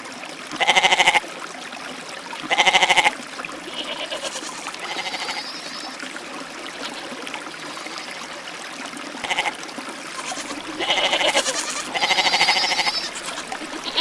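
Goats bleating: two loud, quavering bleats in the first few seconds, then scattered softer bleats, and a cluster of louder overlapping bleats near the end.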